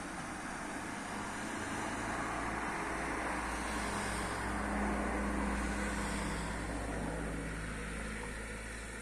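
A car passing on the road below, its engine and tyre noise growing to a peak about five seconds in and then fading away.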